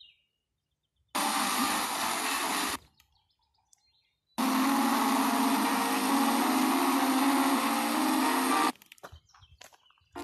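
FM radio receiver being tuned across the band, giving bursts of static hiss between stations: a short burst about a second in, then a longer one from about four seconds to nearly nine, each cut off abruptly by muted silence. A few clicks come near the end.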